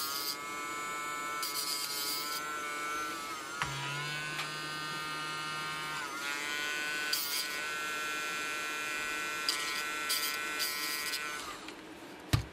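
Dremel rotary tool with a cutoff wheel running at a steady whine while grinding points onto nickel-plated steel pins, with short hissing bursts each time the wheel bites the steel. The motor's pitch dips briefly twice under load, and it winds down near the end, followed by a single sharp click.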